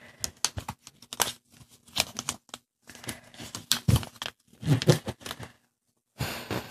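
Black origami paper crinkling and crackling as it is folded and creased by hand: irregular rustles and sharp little crackles, with a short lull near the end.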